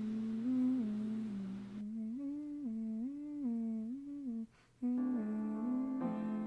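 A person humming a slow, simple tune in stepped pitches. There is a short break about four and a half seconds in, and then instrumental music with a bright, string-like tone comes in under the humming.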